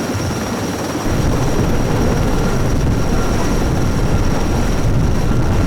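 Sikorsky S-64 Skycrane heavy-lift helicopter running overhead: a loud, steady noise of twin turbine engines and rotor with a thin high whine, and heavy rotor downwash buffeting the microphone. The low rumble grows heavier about a second in.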